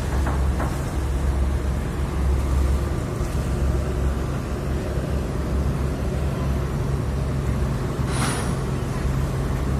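Heavy diesel engine running steadily at a low drone, with a short hiss about eight seconds in.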